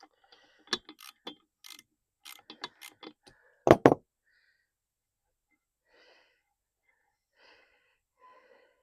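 Socket wrench working bolts on an outboard motor's lower unit: a quick run of ratchet clicks and metal-on-metal clinks, with one louder knock about four seconds in, then a few fainter clicks near the end.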